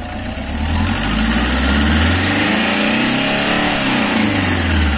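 Toyota Hiace van engine revved up from idle, its pitch rising over about two seconds, held briefly, then falling back toward idle near the end.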